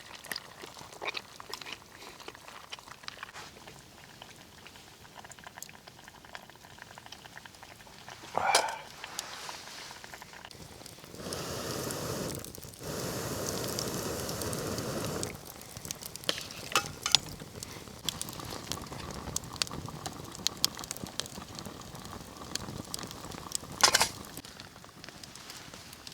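Campfire crackling and popping, with a few seconds of steady hissing in the middle and two louder short sounds.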